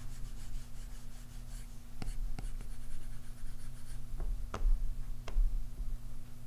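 Apple Pencil tip stroking and tapping on an iPad Pro's glass screen while drawing, with a few sharp taps about two seconds in and again around four to five seconds in.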